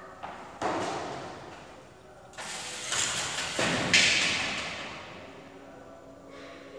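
Thumps and knocks around a barbell loaded with plates resting on a pair of squat stands as a lifter takes hold of it. The loudest is a sharp knock about four seconds in that dies away over about a second.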